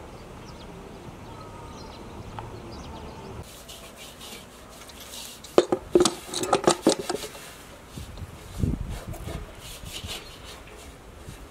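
Metal cookware clattering at a steaming pot: a quick run of sharp clanks and scrapes about halfway through, then a few duller knocks, over faint outdoor background.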